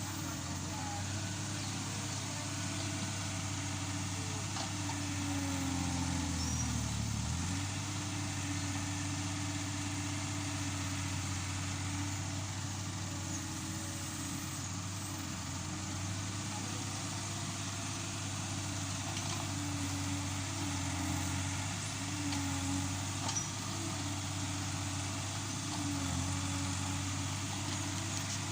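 Yanmar B37 excavator's diesel engine running steadily, its pitch dipping briefly about six to seven seconds in.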